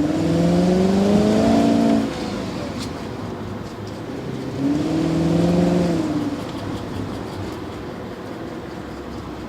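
V8 engine with a hole in its exhaust, accelerating: the engine note climbs and cuts back at about two seconds, surges again around five seconds, then settles to a steadier, lower drone.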